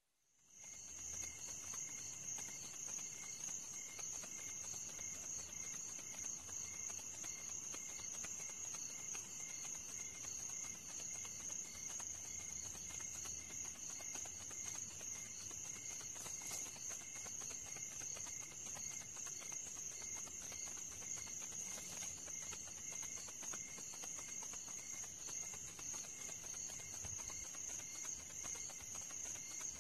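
A steady chorus of insects chirring, a high continuous trill with a fast pulsing beneath it, fading in over the first second.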